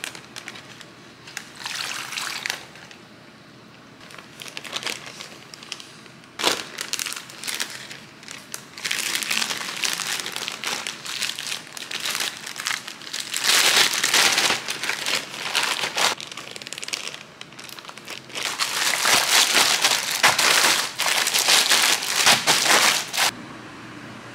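Plastic packaging crinkling and crackling as it is handled, in irregular bursts that stop suddenly near the end.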